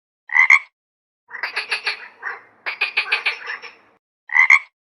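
Frog calling: a short two-note ribbit, then runs of rapid pulsed croaks, then another two-note ribbit near the end.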